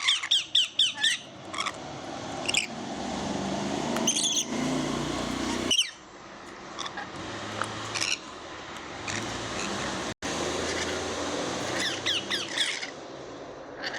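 Lovebirds chirping: a quick run of sharp, high chirps at the start, scattered single chirps after it, and another quick cluster near the end, over steady background noise.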